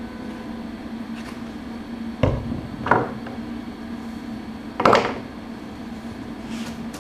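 Three short knocks or clunks, as of objects being handled or set down, about two, three and five seconds in, the last the loudest, over a steady low hum.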